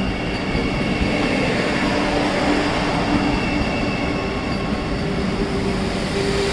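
Vande Bharat Express electric multiple-unit train passing slowly along the platform under a speed restriction: a steady rolling rumble of its coaches with a constant low hum.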